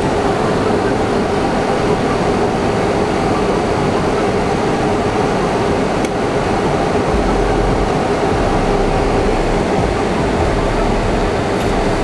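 Gree P1 portable air conditioner running: a steady noise like an electric fan with a faint steady hum in it. The indoor and outdoor sections share one cabinet, so compressor and fans run together and the unit reads about 60 decibels. A low rumble joins about seven seconds in.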